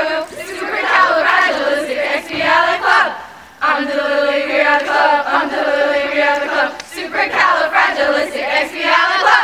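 A group of girls singing a camp song together in unison. In the middle come several long held notes.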